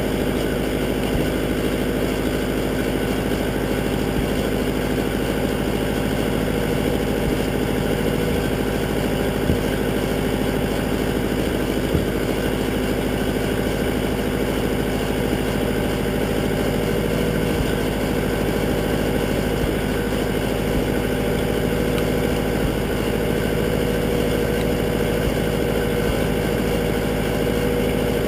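Massey Ferguson 202 Workbull tractor engine idling steadily, an even drone with no change in speed.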